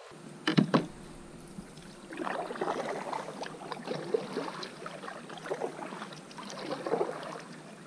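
Double-bladed kayak paddle stroking through calm water, a run of irregular splashing and gurgling swells. About half a second in there are two sharp knocks, the loudest sounds.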